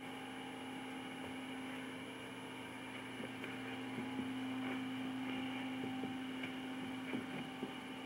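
Steady electrical mains hum, with a few faint clicks about halfway through.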